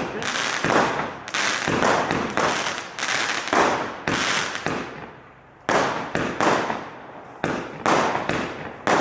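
Brothers Pyrotechnics 'Hammer Time' firework going off in a quick run of loud bangs, about two a second, each dying away quickly, with a pause of about a second just past halfway.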